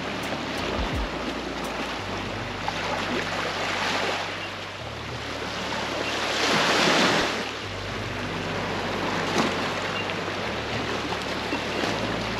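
Small waves breaking and washing up a sandy, rocky shore, the wash swelling and easing, with the loudest surge about six to seven seconds in.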